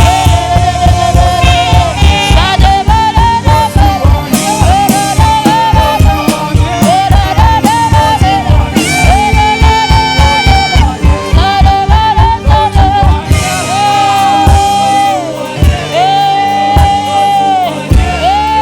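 Live band music with a saxophone playing a bending, wavering lead melody over a steady drum and bass beat. About two-thirds of the way through, the beat drops back and the saxophone holds long notes.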